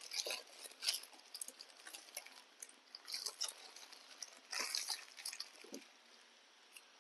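Baby macaques crunching crispy rice crackers, with irregular faint crackles and the crinkle of the plastic snack packets in their hands.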